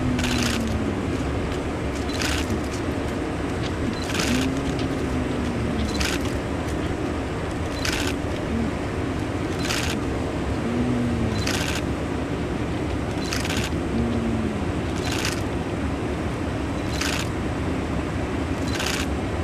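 Sharp clicks repeating evenly about once a second over a steady machine hum, with a short low tone that falls in pitch every few seconds.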